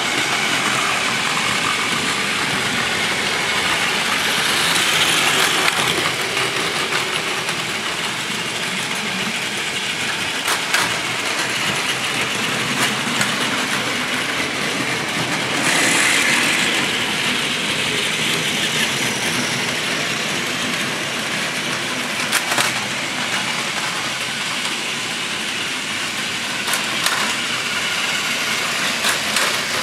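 Several battery-powered Plarail toy Shinkansen trains running on plastic track: a steady whir of small motors and rattle of wheels, swelling as a train passes close, at about five and about sixteen seconds in. A few sharp clicks come through in the second half.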